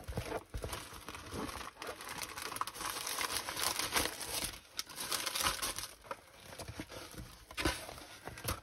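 Plastic packaging and a rolled diamond painting canvas crinkling and rustling as they are opened and unrolled by hand, with irregular crackles.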